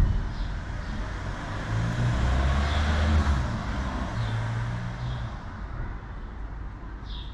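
A motor vehicle passing close by: a low engine hum and road noise swelling to a peak about two to three seconds in, then fading away.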